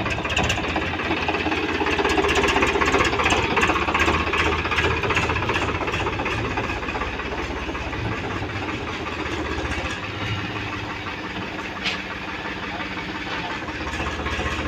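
Powertrac Euro 50 tractor's diesel engine running with a steady knocking clatter as it tows a loaded trailer, loudest a few seconds in and easing off in the second half.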